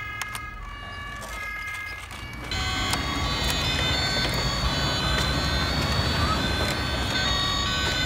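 Electronic two-tone siren from the sound modules of Bruder toy fire-service vehicles, stepping back and forth between two pitches. About two and a half seconds in it turns louder and fuller, with several sirens overlapping over a rumbling noise.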